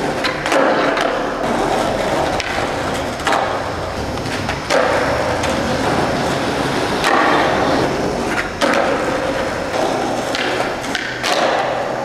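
Skateboard wheels rolling on a concrete floor, broken by several sharp wooden clacks as the board is popped and lands during trick attempts.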